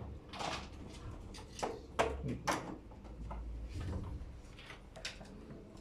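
Scattered small clicks and knocks, with a low rumble of handling noise on the microphone through the first few seconds.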